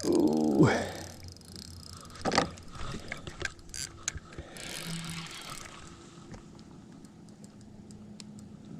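Small fishing boat at rest: a faint steady hum with scattered light clicks and a sharper knock about two seconds in, after a short exclamation.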